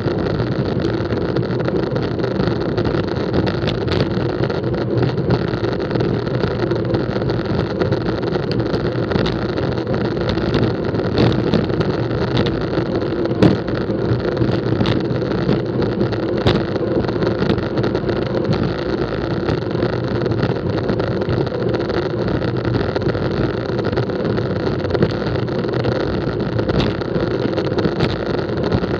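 Steady wind buffeting and road rumble picked up by an action camera on a road bike riding at race speed in a bunch, with scattered small clicks and knocks from the bike over the road.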